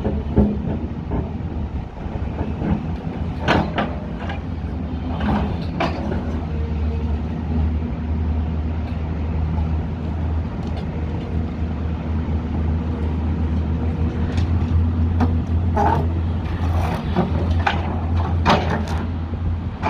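A heavy diesel excavator engine running steadily under load. A few short, sharp knocks sound over it, two a few seconds in and two more near the end.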